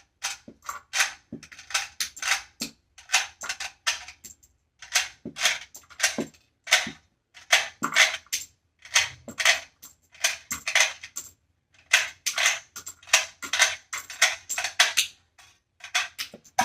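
Cartridges being worked by hand through a firearm magazine: a quick, irregular run of sharp metallic clicks and clinks, several a second, as the rounds snap past the magazine's feed lips and spring, one after another.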